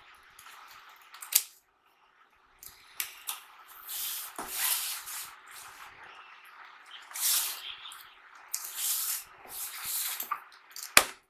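Cardboard shipping carton being opened by hand: tape and cardboard ripping and scraping in several short rasping bursts, with a sharp click near the end.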